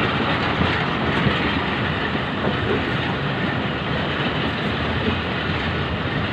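Passenger train running at speed, heard from an open carriage window: a steady rumble of the wheels on the rails with rushing noise and faint scattered clicks.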